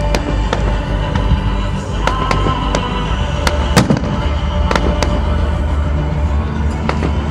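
Fireworks going off in quick, irregular bangs and crackles over loud music playing for the display, with the strongest, deepest bang about four seconds in.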